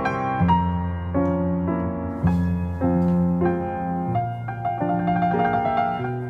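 Gentle piano background music: a melody of short notes over held bass notes.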